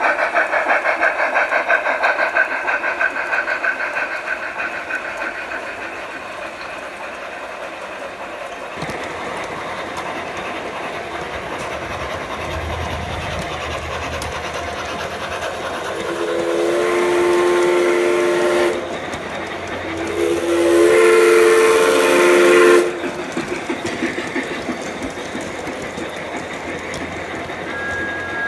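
Sound decoder of a large-scale (G scale) model steam locomotive: rapid steam chuffing at the start that fades away, over the steady running noise of model trains on track, then two long chime-whistle blasts past the middle, the second one louder.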